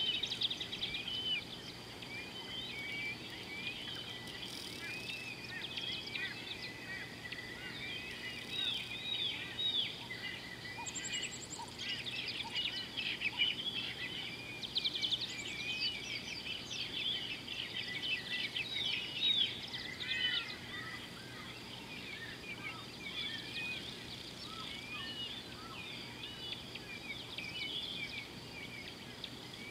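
A chorus of many birds calling over each other in short chirps and whistles, busiest in the middle and thinning out towards the end.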